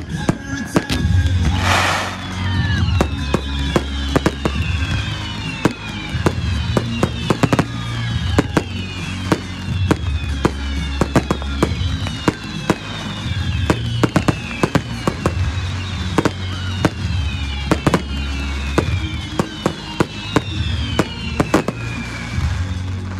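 A barrage of fireworks: many whistles sliding down in pitch one after another, with sharp reports throughout and a brief burst of noise about two seconds in, over music.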